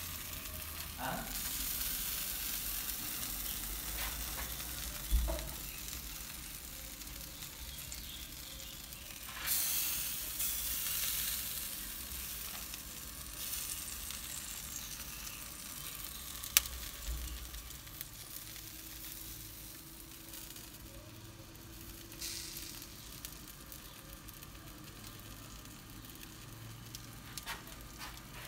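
Meat roasting on rotisserie skewers over wood embers and charcoal, sizzling with an even hiss and scattered crackles. A dull thump about five seconds in and a sharp click a little past halfway stand out above it.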